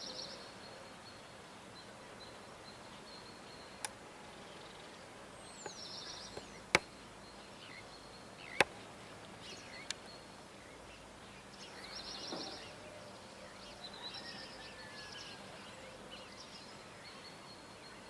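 Quiet outdoor morning ambience: scattered short bird chirps and calls over a faint steady background hiss, broken by four sharp clicks, the loudest two about seven and eight and a half seconds in.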